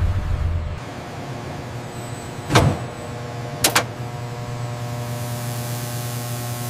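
Steady low machine hum, with one sharp knock about two and a half seconds in and a quick double click about a second later.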